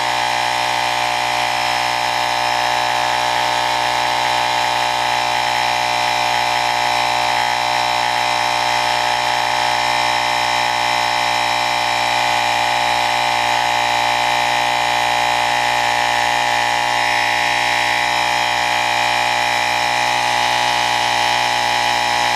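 Suaoki portable tyre inflator's compressor running steadily with an even hum, pumping air into a motorcycle's front tube tyre.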